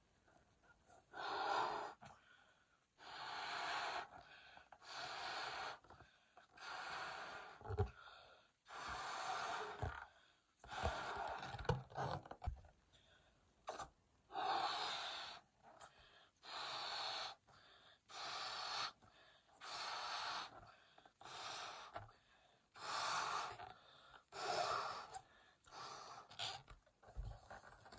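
A person blowing up latex party balloons by mouth: about twenty hard, hissing breaths into the balloon, roughly one a second, each followed by a quick gasping intake of breath.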